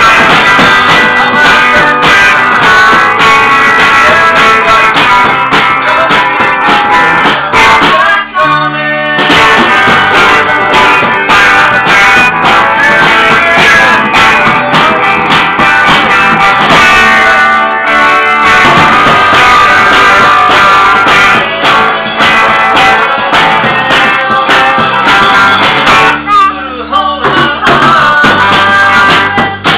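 Loud music with guitar, singing and drum hits, breaking off briefly twice and stopping abruptly at the end.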